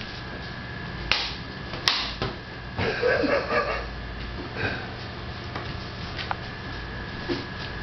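A dog shaking and thrashing a stuffed toy in its mouth: a few sharp slaps and snaps about one and two seconds in, then a short flurry of scuffling and rustling noises around three seconds in.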